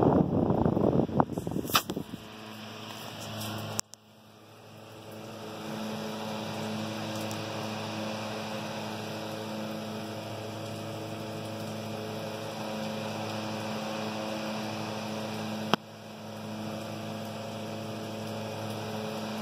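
Restored 1930s GE 10-inch oscillating desk fan with aluminum blades running, its motor giving a steady electric hum. A loud rush of air off the blades fills the first two seconds, and there are two sharp clicks, about four seconds in and near the end.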